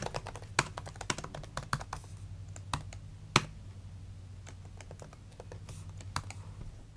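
Typing on a laptop keyboard: quick irregular key clicks, busy in the first few seconds and thinning out later, over a low steady hum.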